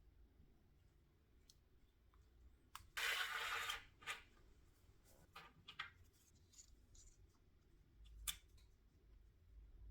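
Quiet handling of small jigsaw parts on a bench: scattered light clicks and taps, a brief scratchy noise about three seconds in, and a sharper click near the end.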